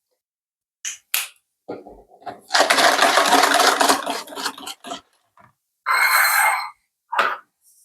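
Kitchen handling noises from a mixing bowl and utensils: a few light clicks, then about two seconds of continuous stirring or scraping noise, and a short rattle about six seconds in.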